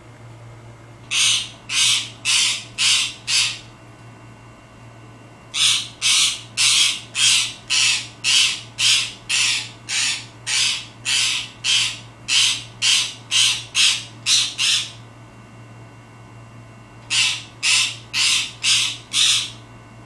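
Pet green parakeet barking: harsh, dog-like calls repeated about twice a second in three runs, with pauses of a couple of seconds between runs. It is a call this bird uses to get attention.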